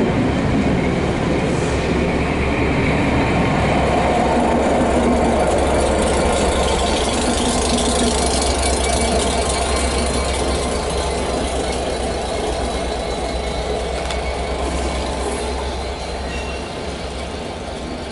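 Departing diesel-hauled train: coaches and a trailing Class 67 locomotive roll past, wheels running on the rails over a steady low diesel engine drone. The sound fades as the train pulls away near the end.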